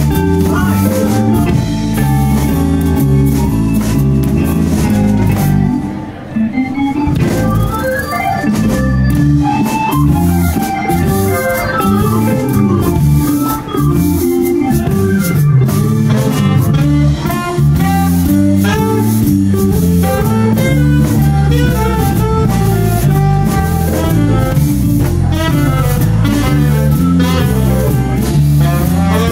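Live blues band playing a slow blues number, with organ-toned keyboard, electric guitar and drums.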